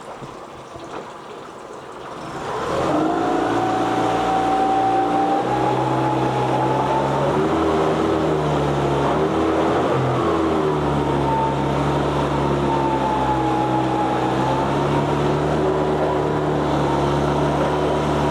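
2022 Mercury 9.9 hp four-stroke outboard running in a test tank. It is quiet for the first couple of seconds, then about two and a half seconds in it gets much louder and runs faster, as in gear with the throttle opened. It then runs steadily with its pitch wavering a little, while the propeller cavitates a little in a tank too shallow for its short shaft.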